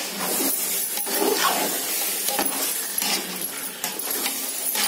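A metal spoon stirring chunks of chicken in thick curd and masala in a metal pot: wet scraping and squelching, with scattered clinks of the spoon against the pot.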